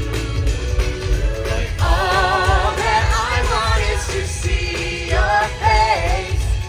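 Music with a singing voice; from about two seconds in, sung notes waver in pitch over a steady bass line.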